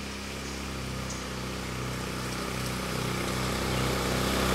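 Small motorcycle engine running as it approaches, growing steadily louder.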